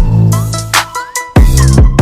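Background electronic music with a heavy bass-drum beat, sharp snare hits and synth tones.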